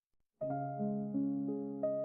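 Background piano music starting about half a second in, with notes struck one after another and left to ring.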